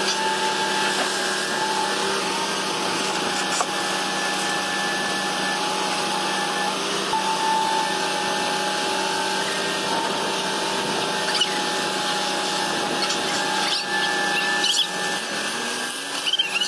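Heavy machinery running steadily: a constant machine drone with a high whine on top.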